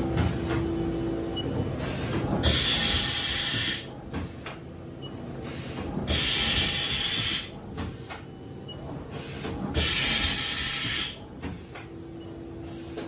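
Loud hissing in repeated bursts, each about a second long and coming roughly every three and a half seconds, over a steady low machine-shop rumble. A steady hum-like tone sounds at the start and again near the end.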